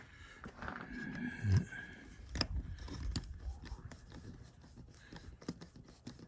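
Light clicks, taps and scrapes of small doorbell-mounting hardware, screws and a plate, being handled. There is a dull thump about a second and a half in and a sharper knock about a second later.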